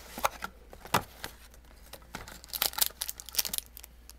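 A sealed trading-card box and its wrapping being torn open and handled, with scattered sharp clicks and crinkles that bunch together a little past halfway.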